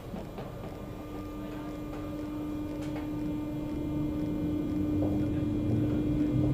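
MI84 RER electric train starting to pull away: a steady electric hum from its traction equipment grows louder over a low rumble, with further tones joining near the end.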